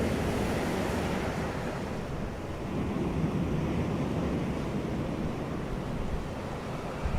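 Ocean surf washing continuously, easing a little about two and a half seconds in and building again, with a brief low thump near the end.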